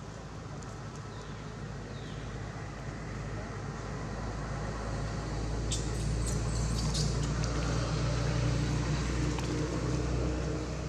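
A low motor hum that grows louder over several seconds and eases off near the end. A few sharp clicks come about six to seven seconds in.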